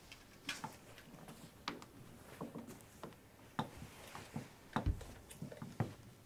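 Faint, irregular clicks and soft knocks, a few each second, with one duller thud about three-quarters of the way through.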